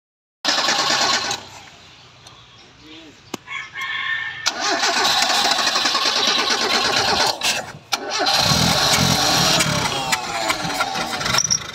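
Mazda 323 being cranked on its starter motor in three attempts, a short one and then two longer ones, with pauses between. The engine does not catch: it is a car that won't start.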